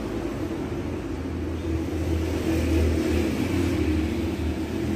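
Steady low rumble with a faint hum, with no clear single event standing out.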